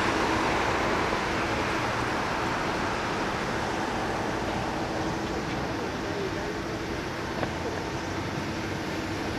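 Airbus A330-342's Rolls-Royce Trent 700 jet engines running just after touchdown, as the airliner rolls out along the runway. A steady rush of jet noise with a low steady hum, easing slightly in level.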